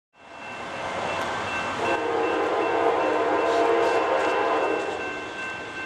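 Horn of the lead diesel locomotive (a GE C40-9W) of an approaching Norfolk Southern freight train, one long steady chord blast that starts about two seconds in and lasts about three seconds, over trackside background noise.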